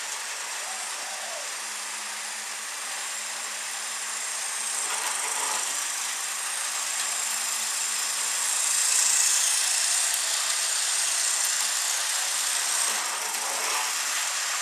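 Tyco HO-scale GG1 model locomotive and its freight cars running on the track: a steady mechanical whir that grows louder as the locomotive comes near, loudest about nine seconds in, then eases off.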